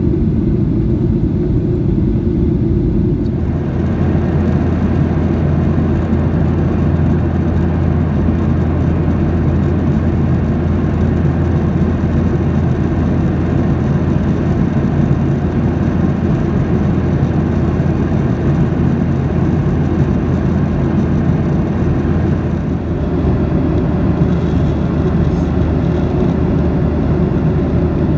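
Steady cabin noise of a Boeing 737-800 in flight, heard from a window seat: the CFM56-7B jet engines and the airflow make a constant rush with a low hum underneath. The sound changes about three seconds in and again near the end.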